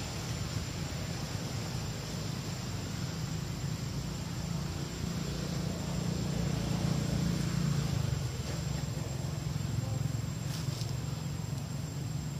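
Steady outdoor ambience: a low hum with a thin, steady high-pitched tone above it, swelling slightly around the middle.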